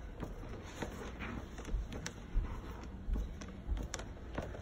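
Hand screwdriver driving a screw into a plastic baby-rocker frame: scattered small clicks and ticks, with a few soft low bumps.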